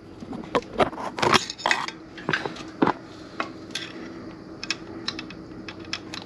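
Steel Allen key clinking and scraping against the set screw and shaft coupler of a B&G pump as the set screw is worked loose: irregular metallic clicks, the loudest about a second in, over a faint steady hum.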